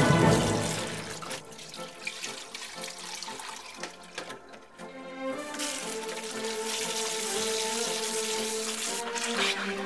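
Tap water running into a plastic basin and splashing as gloved hands knead and rinse pig intestines; the splashing drops away for about a second midway, then resumes. Background music plays underneath.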